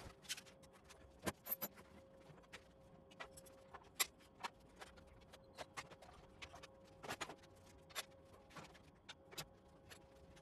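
Faint, irregular clicks and light knocks, a few a second and unevenly spaced, over a faint steady hum, as of hand tools and parts being handled during a tractor teardown.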